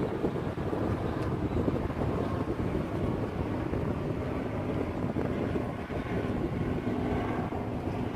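Wind rumbling on the microphone over a steady low outdoor din, with a faint even engine hum coming in about halfway through.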